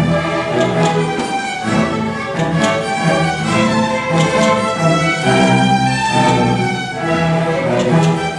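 High school orchestra playing, bowed strings to the fore, with a steady pulsing rhythm in the low notes and a few sharp accents.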